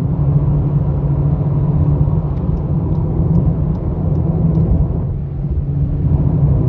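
Volkswagen Jetta 1.4 TSI's turbocharged four-cylinder engine and road noise heard from inside the cabin while cruising: a steady low drone that dips briefly about five seconds in, with a few faint ticks.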